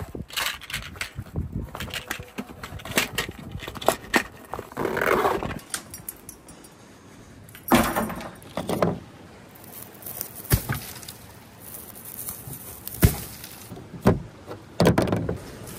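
Gear being handled and stowed: a zipper on a mesh storage pouch pulled about five seconds in, among scattered clicks, knocks and rustles of small hard items being set down.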